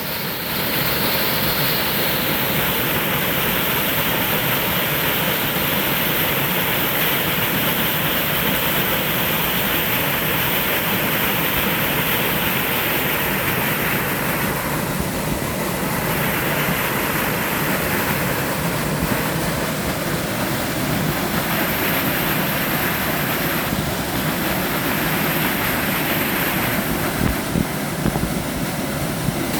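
Small mountain-stream waterfall, water pouring and splashing in a steady rush. The upper part of the rush dims briefly a few times in the second half.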